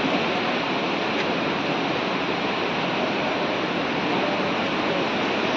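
Steady rushing of water, even and unbroken.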